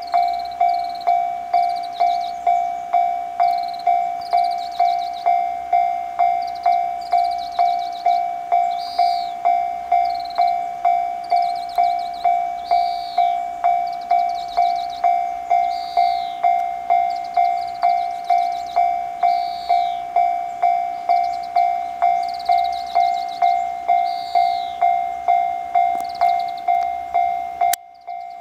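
Japanese level-crossing warning bell ringing in even, repeated strikes, about three every two seconds, with small birds chirping over it. The sound cuts out for a moment near the end.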